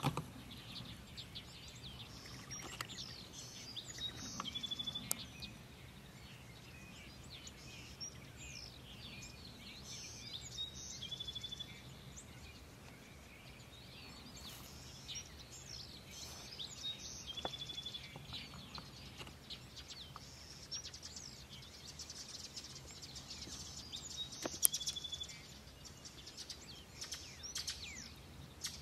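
Wild songbirds chirping and calling, many short high chirps with a brief trill repeated every few seconds, over a faint low steady hum. A sharp click sounds once about three-quarters of the way through.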